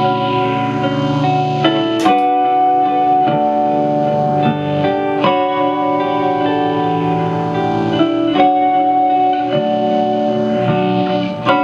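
Layered ambient electric guitar loop from a Gibson LPJ, played through a Line 6 DL4 looper into a Marshall MG15 amp with its spring reverb all the way up. Overlapping sustained picked notes, with new notes entering every second or two over steady low notes.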